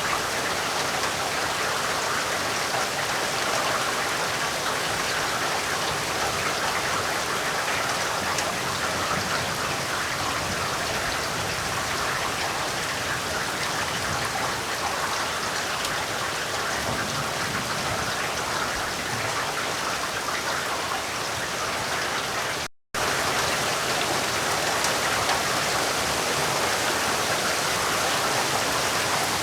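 Heavy rain falling steadily, an even hiss of countless drops. It cuts out to silence for a split second about three quarters of the way through, then resumes unchanged.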